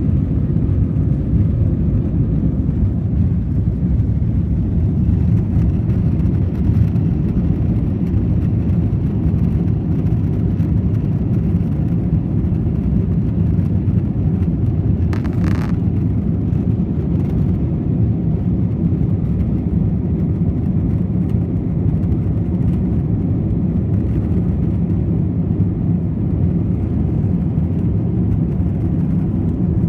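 Steady low rumble of an airliner's engines and airflow heard inside the cabin from the rear seats, with a brief higher sound about halfway through.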